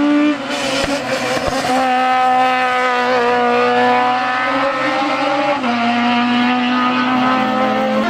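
Honda Civic hatchback race car's four-cylinder engine running at high revs as the car drives past through a bend, its pitch stepping a few times.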